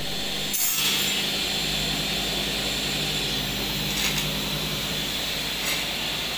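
Steady hum of workshop machinery with a hiss over it. Short noisy bursts come about half a second in, about four seconds in and near the end.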